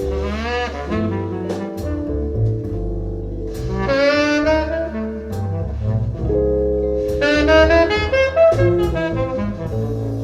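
Recorded music played through an Audio Note Cobra push-pull tube amplifier and AN-J-LX loudspeakers: a lead melody in three phrases over a steady bass line.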